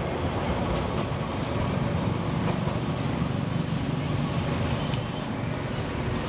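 Steady low rumble of city traffic: road vehicles and a tram running on its tracks.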